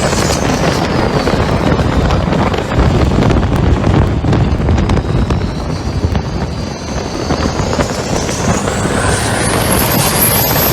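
Diesel engine of a Thai long-tail racing boat running hard, heard from on board. A high whine falls away over the first couple of seconds and climbs again near the end.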